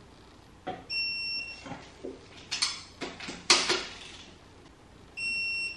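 Digital torque wrench beeping twice, a short high steady beep about a second in and another near the end, signalling that an ARP head stud on a Toyota 1JZ cylinder head has reached its 100 ft-lb target torque. Between the beeps come clicks and clatter of the wrench and socket being handled, with one sharp knock in the middle.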